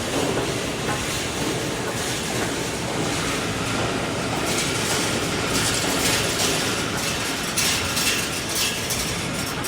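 Automatic wire mesh welding machine running: a steady mechanical din, with a quick metallic clatter that gets busier from about halfway through.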